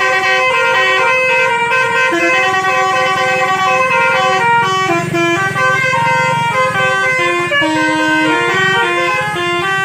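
Indonesian bus basuri musical air horn playing a tune, its notes stepping up and down one after another, over a low steady hum.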